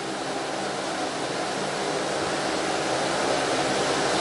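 Steady rushing hiss with a faint low hum, slowly growing louder.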